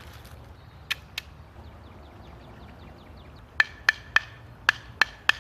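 Hard knocks on a coconut to crack it open: two strikes about a second in, then a steady run of ringing blows about three a second from past the halfway point.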